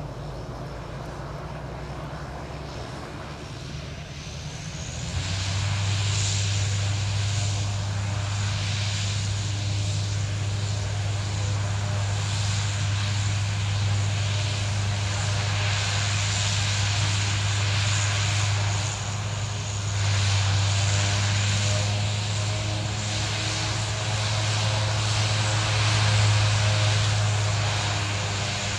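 Alenia C-27J Spartan's twin Rolls-Royce AE 2100 turboprops with six-blade propellers, lined up for takeoff and spooling up to high power about five seconds in. They then run steadily at that power: a deep propeller drone under a strong turbine hiss.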